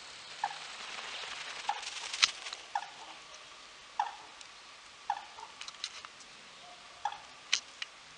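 A bird's short chirping call repeated about once a second, with a few sharp clicks, the loudest a little past two seconds in.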